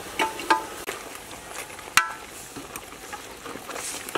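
Metal ladle stirring a pot of palov, the pork and egg stew, clinking against the side of the aluminium pot. There are a few sharp, ringing clinks, the loudest about two seconds in.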